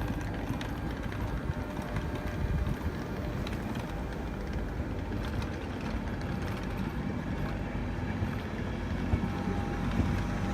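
Diesel engines of a Class 43 High Speed Train power car running steadily, a constant low rumble with a faint steady hum above it.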